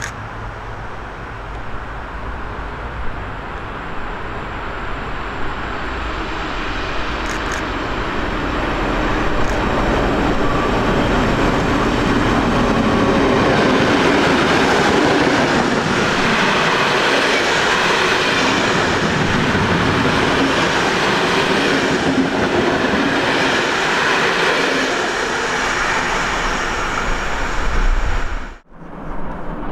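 A steam-hauled train runs through, led by a class 58 steam locomotive: it approaches, goes by, and a long string of old passenger coaches rolls past with their wheels running on the rails. The sound builds over about ten seconds, holds loud while the coaches pass, then eases and cuts off suddenly near the end.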